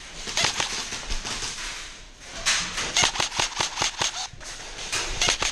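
Airsoft gunfire: sharp snapping shots, a quick run of about five a second through the middle, with scattered single shots before and after.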